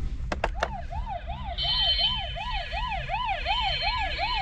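Battery-powered Disney Junior Mickey Mouse fire engine toy playing its electronic siren sound effect through a small speaker: a fast yelping siren that sweeps up and down about three to four times a second. It starts after three quick clicks, and a steady high tone joins it about a second and a half in.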